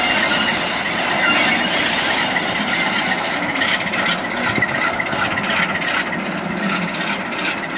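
Class 46 'Peak' diesel locomotive, with its Sulzer twin-bank engine, running as it moves slowly over yard trackwork, with a steady high squeal from the wheels on the rails. The sound eases slightly towards the end.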